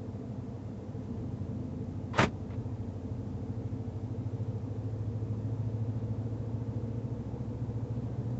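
Steady engine and road hum of a 2012 Dodge Ram pickup truck driving slowly, growing a little louder past the middle. A single sharp click about two seconds in.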